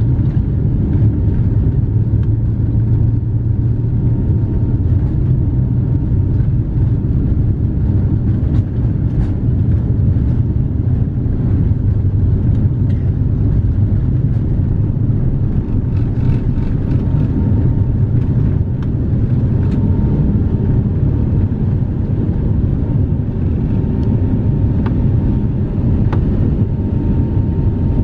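Steady deep rumble inside the cabin of a Boeing 777-300ER taking off: its GE90 engines at takeoff power and the roll down the runway, carrying on into the climb, with a faint steady whine above it.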